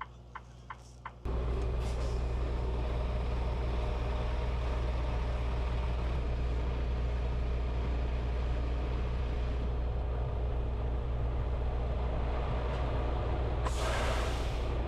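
A few faint clicks, then, about a second in, a semi truck's diesel engine starts up and runs steadily, heard close by. Near the end there is a short burst of compressed air hissing, like an air brake.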